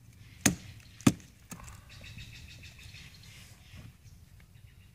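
Wooden baton knocking on the back of a Fiskars hatchet to drive it through a piece of firewood and split it. Two sharp knocks about half a second apart are followed by a softer third, then a pause.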